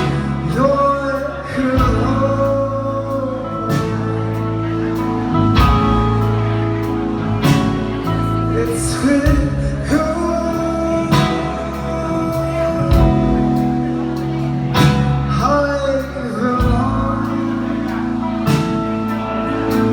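Live band music: a male voice sings over held guitar chords and a low bass line, with a drum hit about every two seconds.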